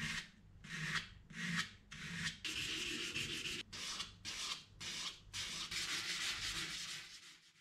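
Sandpaper rubbed by hand over body filler on a steering wheel rim: a run of dry hissing strokes, roughly two a second with a few longer passes, that stops abruptly near the end.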